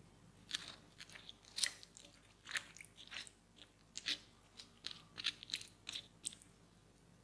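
A wooden spoon stirring raw waffle-cut potato slices in a glass bowl of water: irregular, sharp, crisp clicks and crunches as the firm slices knock and slide against each other and the bowl.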